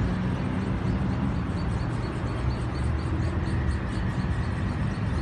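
City street traffic noise: a steady low rumble of passing cars, with a faint high ticking that repeats a few times a second.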